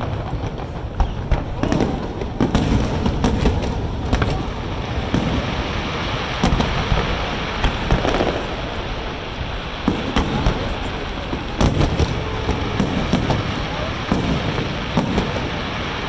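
Aerial fireworks bursting in quick succession: many sharp bangs and cracks, irregularly spaced, over a continuous rumble.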